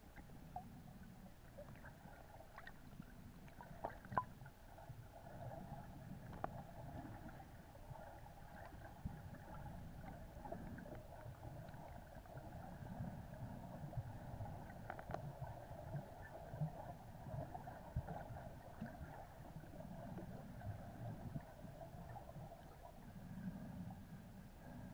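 Underwater ambience picked up by a submerged camera: a faint steady hum with low uneven water movement and scattered faint clicks.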